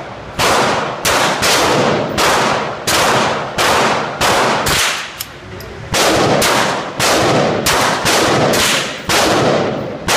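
Handgun fired repeatedly, about fifteen shots spaced roughly half a second to a second apart, with a longer pause of about a second midway. Each shot is a sharp crack followed by echo off the walls of an indoor shooting range.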